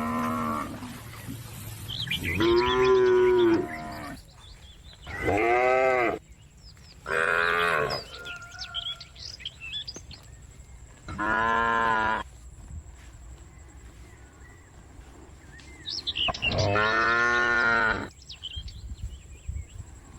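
Cows mooing again and again, about five long moos of one to two seconds each with pauses between, and faint bird chirps in the gaps.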